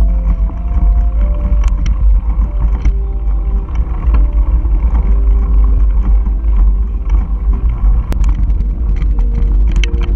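Ride noise from a mountain bike on a dirt trail: wind on the camera's microphone makes a heavy steady rumble, with scattered clicks and rattles from the bike over the rough ground. Background music with slow held notes plays underneath.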